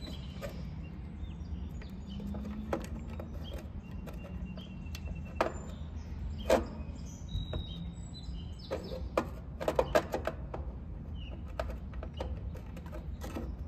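Scattered clicks and knocks of a new oval dual-run capacitor being handled and fitted into an AC condenser's control box, the sharpest about six and a half seconds in and a quick cluster around nine to ten seconds, over a steady low rumble.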